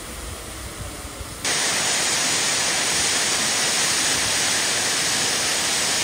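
Steady, loud hiss of rushing water that cuts in abruptly about one and a half seconds in, after a quieter stretch.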